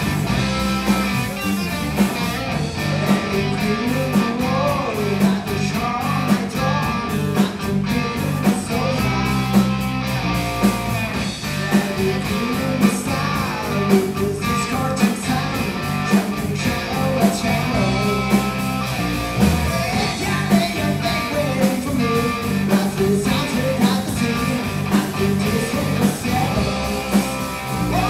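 Live blues-rock band playing: electric guitars over a drum kit keeping a steady beat.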